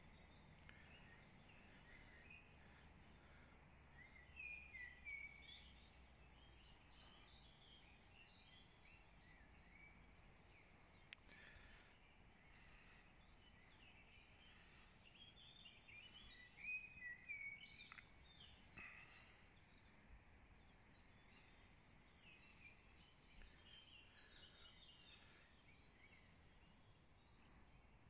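Faint songbird chorus: several birds singing overlapping short, falling chirps, with louder phrases about four seconds in and again just past the middle.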